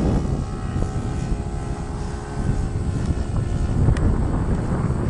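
O.S. 95 four-stroke glow engine of a radio-controlled Cessna 182 model running steadily in flight through its stock muffler, a propeller drone. A heavy low rumble of wind on the microphone runs under it.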